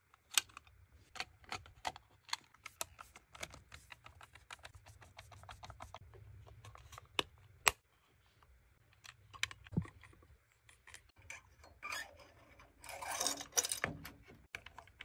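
Irregular small clicks and taps of a plastic cylinder thermostat housing being handled and closed up, with a longer rubbing scrape near the end as the thermostat is fitted onto the hot water cylinder.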